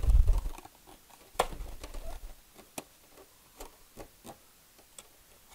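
A thin foam wing fillet being pressed and fitted by hand against a foam model-aircraft fuselage: a low thump at the start, then faint rustling and a few sharp ticks and creaks of the foam.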